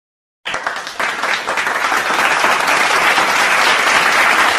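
Crowd applause, many hands clapping. It starts suddenly about half a second in, swells over the next second, then holds loud and steady.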